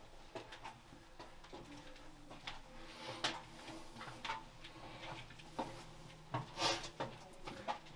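Footsteps climbing worn stone stairs, irregular scuffs and crunches of shoes on grit and loose debris.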